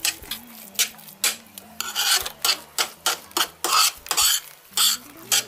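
A metal spoon stirring and scraping crumbly sausage stuffing around a stainless steel pan, in short rough strokes about two or three times a second.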